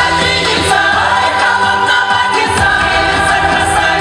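A song with several voices singing over music, played loudly and steadily.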